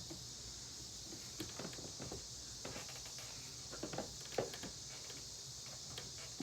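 Faint, scattered light clicks and knocks of the parts of a Hoover vacuum cleaner being handled and worked apart, the loudest knock a little past the middle.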